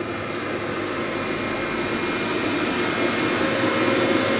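Steady whirring air noise with a few faint steady tones in it, growing slightly louder, from a Leica HistoCore Pearl tissue processor that is still working at the end of its cleaning program, its retort still hot from the drying step.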